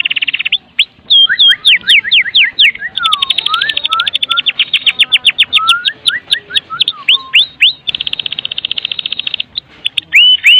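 White-rumped shama singing: fast rattling trills between runs of rapid sweeping whistled notes, with another rattle late on and rising whistles near the end.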